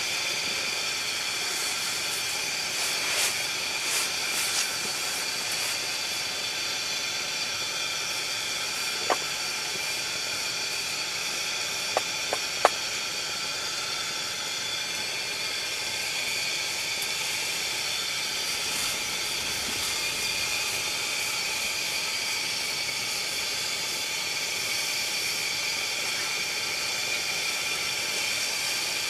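Steady hiss of a chrome pressure lantern's burner, with a few faint clicks.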